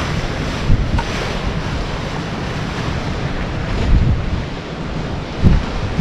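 Wind-driven river waves breaking and washing against a concrete seawall, with strong gusty wind buffeting the microphone.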